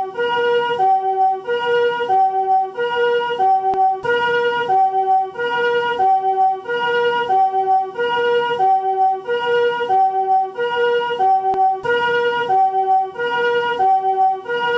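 Japanese ambulance chord-type 'comfort' siren sounding its two-tone hi-lo 'pee-po' pattern. Each note is a soft chord rather than a single pitch, and the high and low chords alternate evenly about every two-thirds of a second.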